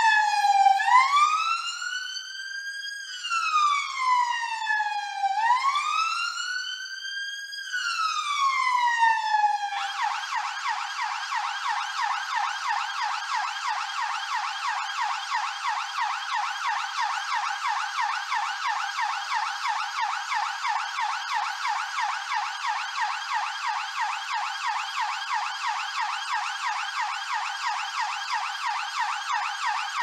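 British police car siren on a slow wail, rising and falling in pitch twice. About ten seconds in it switches to a fast yelp that sweeps up and down rapidly and steadily.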